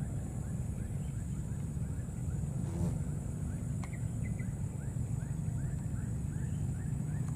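Outdoor ambience: a steady low rumble and a steady high hum, with a short chirping call repeated about two to three times a second, plainest in the second half, and a single click about three seconds in.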